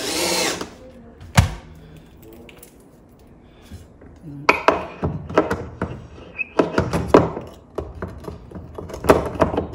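Cordless drill briefly whirring as it drives a screw into a pine board, followed by a single sharp knock. From about halfway, a run of knocks and scrapes from a steel flat pry bar worked against the screws and wood to lever the sill board up into line.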